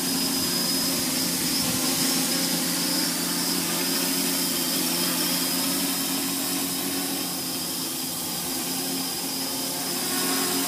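FPV quadcopter's motors and propellers holding a steady buzzing whine while it hovers in GPS position-hold, easing slightly in level partway through.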